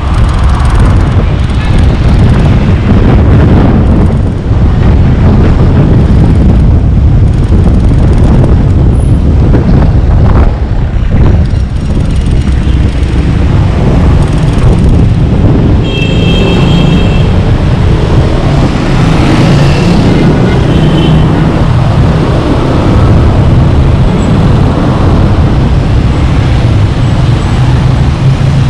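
Road and traffic noise from a car driving slowly through city streets: a loud, steady low rumble from the car and surrounding vehicles. A brief high-pitched tone sounds about halfway through.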